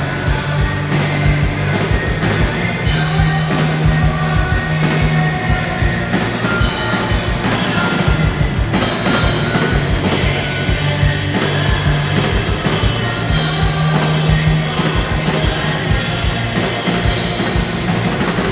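Rock band playing live at full volume, a drum kit driving a steady beat under low sustained bass notes and other instruments.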